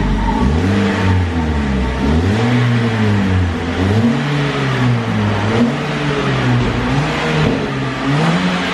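Toyota Yaris four-cylinder revved in a series of throttle blips at the tailpipe, pitch rising and falling every second or so. It plays through an NDK DK-03 V4 'Full Bass' muffler on the stock resonator and header, and the note stays soft, which the shop puts down to the long, large stock resonator.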